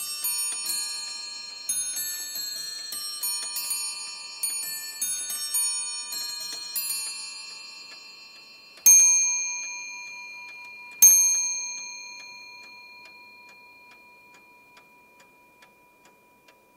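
Late-18th-century English spring-driven table clock by William Dorrell chiming the quarters on its bells: a quick run of ringing notes. It then gives two louder strokes on a deeper bell about two seconds apart, striking the hour, and the ringing fades into the steady ticking of the movement.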